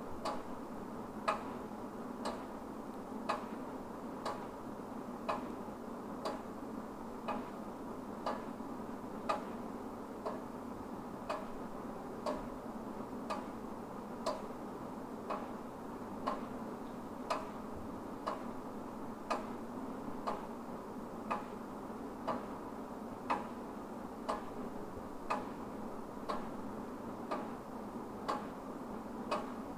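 Wall clock ticking steadily about once a second, over a low steady hiss.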